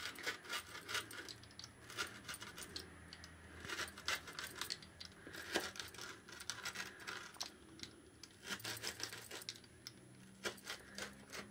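Metal pizza-cutter wheel rolling through a crisp pan-baked pizza crust on a wooden board: a run of faint, irregular crunching clicks, the sound of a base that has baked crunchy.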